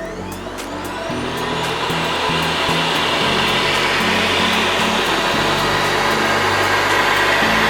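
Vacuum cleaner motor spinning up with a rising whine, then a steady rush of sucked air that grows louder over the first few seconds and holds.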